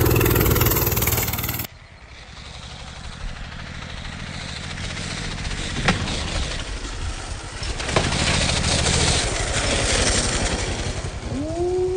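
Small single-cylinder minibike engine running loud, cut off abruptly under two seconds in, then running again more quietly and building up, with two sharp clicks. Near the end a pitched tone rises and then holds steady.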